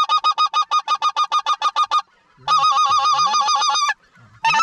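Specklebelly (greater white-fronted goose) calling, loud and close: a fast run of short yelps, about ten a second, then after a short gap a rolling trill, and another run starting near the end.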